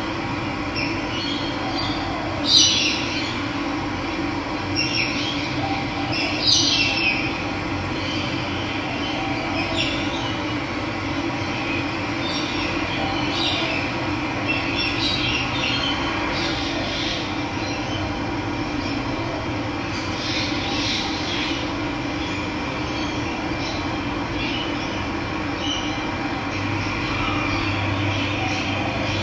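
Steady rush of running water with scattered bird calls over it; the loudest calls come about two and a half and six and a half seconds in.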